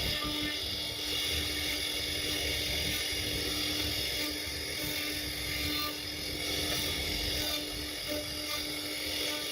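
CNC router spindle running steadily with a constant high whine while its bit cuts into wood.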